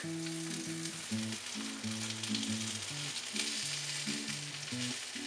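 Corn and pea fritters sizzling in oil in a cast-iron skillet, a steady frying hiss. Background music with low held notes plays underneath.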